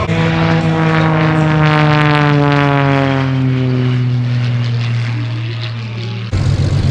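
Edge 540 aerobatic plane's six-cylinder Lycoming engine and propeller passing, its pitch falling slowly as it draws away. Near the end the sound cuts suddenly to a lower, steady engine sound.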